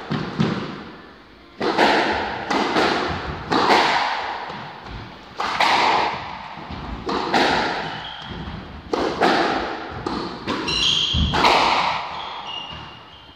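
A squash rally: sharp cracks of the ball off the rackets and the court walls, about one a second, each ringing out in the court's echo, with a few short squeaks of shoes on the wooden floor.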